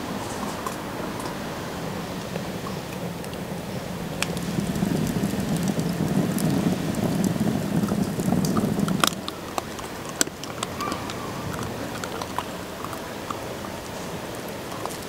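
Wood fire burning under a cauldron in a brick stove: a low rushing noise with sharp crackles and pops, louder towards the middle. The rushing cuts off suddenly about nine seconds in, leaving quieter outdoor ambience with occasional clicks.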